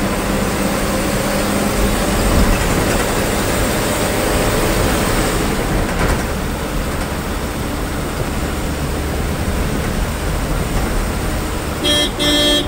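Heard from inside the cabin of a moving KSRTC bus: the diesel engine runs with steady road and rattle noise. A horn honks briefly near the end.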